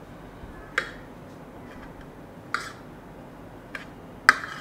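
Metal spoon clinking against a ceramic plate while stirring salt into soaked sago pearls: a few sharp clinks, the loudest near the end.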